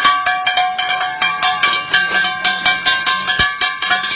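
Street drummer playing an improvised kit of cooking pots, pans and plastic buckets: a fast, even rhythm of sharp strikes with ringing metallic tones.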